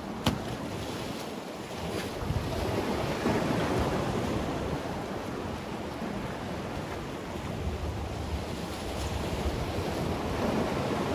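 Sea waves washing and breaking against the concrete blocks and rocks of a breakwater, rising and easing in slow surges, with wind buffeting the microphone. There is one sharp tap just after the start.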